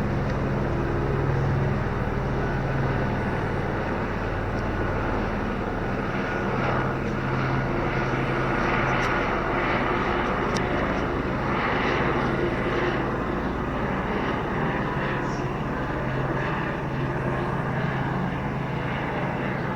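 Helicopter flying over and past, its engine and rotor making a steady drone.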